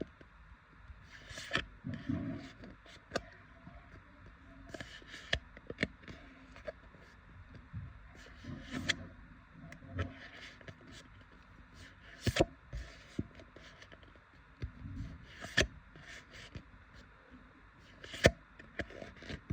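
Trading cards being handled: soft sliding and rubbing as cards are moved through the hands, with scattered sharp taps and clicks, the loudest about two-thirds of the way in and near the end.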